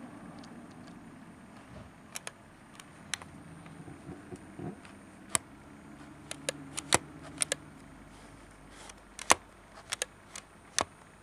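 Nikon 80-200mm zoom lens giving off sharp, irregular clicks, some single and some in quick pairs, over a faint low hum.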